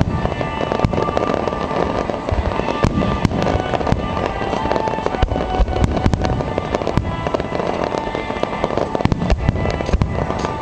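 A dense, continuous barrage of fireworks: many bangs in quick succession with crackling, and music playing underneath.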